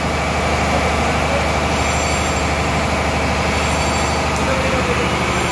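Ship's engine-room machinery running with a loud, steady drone.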